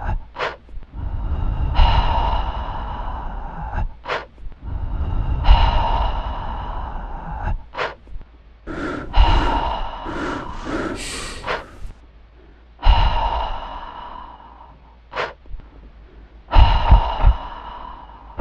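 A person's heavy breathing: sharp, loud intakes of breath and a run of hissing, gasping exhalations in the middle. These alternate with ringing tones that start suddenly and fade over about two seconds, repeating roughly every three to four seconds.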